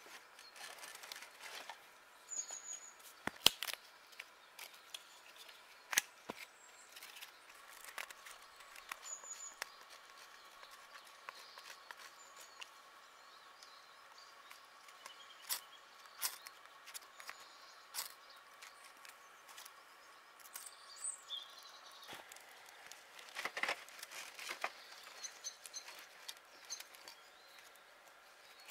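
Handling sounds of fire-making at a small steel camp stove: sharp knocks as split firewood is set into the stove, and scraping at birch bark with a knife and ferro rod, with a quick run of strokes near the end. A small bird gives faint short high chirps now and then.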